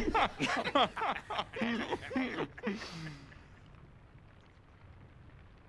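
A man laughing heartily in short repeated bursts that die away about two and a half seconds in, followed by a brief breathy hiss and then only faint background noise.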